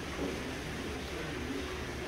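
Dairy barn ambience: a steady low hum of barn machinery, with faint scattered sounds of Holstein cows feeding at the feed barrier.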